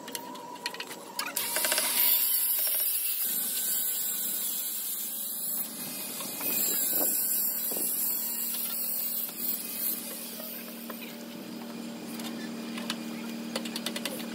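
A run of quick hammer taps in the first second or so, then a loud, steady hiss that fades down after about ten seconds, with a low steady hum near the end.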